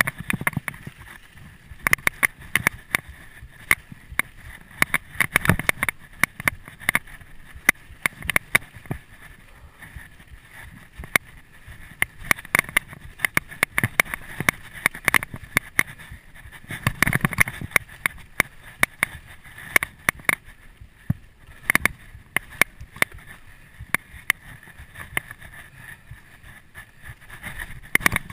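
A 2011 Canyon Nerve AM 7 full-suspension mountain bike rattling down a rough dirt trail: an irregular clatter of sharp clicks and knocks from the chain and frame, with tyre noise underneath, coming in louder bursts every few seconds.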